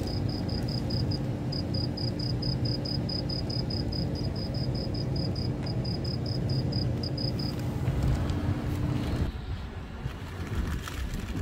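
A cricket chirping in quick, even pulses, about six a second, over a steady low machine hum. The chirping stops about two-thirds of the way in, and the hum cuts off near the end.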